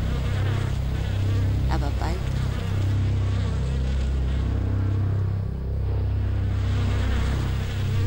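Steady low buzzing hum that swells and dips slightly without changing pitch.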